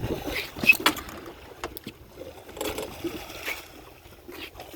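Water and wind noise around a small fishing boat, broken by several short sharp knocks and splashes, the loudest a little under a second in.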